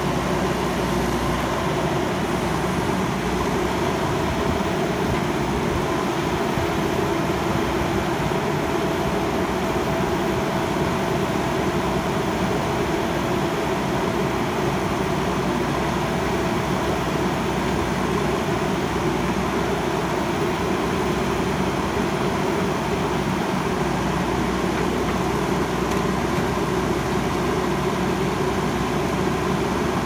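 JCB backhoe loader's diesel engine running steadily while the rear backhoe arm works.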